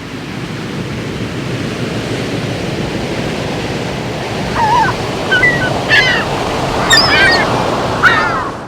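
Ocean surf washing in a steady rush that slowly grows louder. From about halfway in, several short high calls sound over it.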